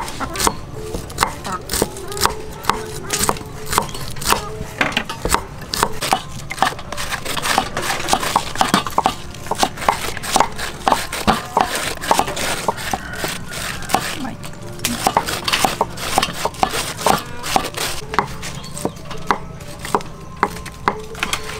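Cleavers chopping yardlong beans on wooden chopping blocks: quick, repeated knocks, several a second. Knives shaving cabbage into a metal tray are in the mix for part of the time.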